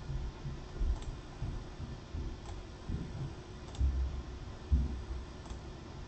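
Computer mouse clicking: four faint, sharp clicks a second or more apart. Through them run several dull, low thuds about a second apart, louder than the clicks.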